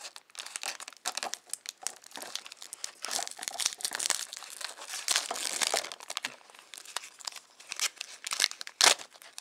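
Trading card pack being torn open by hand: the wrapper crinkles and tears in uneven bursts, with one sharp snap near the end.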